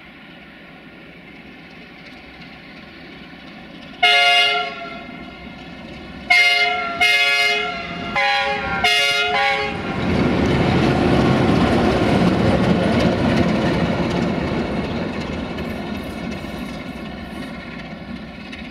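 Electroputere 060-DA (LDE2100) diesel-electric locomotive with its Sulzer engine running as it approaches. It sounds its horn five times, one blast and then four shorter ones. It then passes close by with a loud rush of engine and wheel noise that slowly fades.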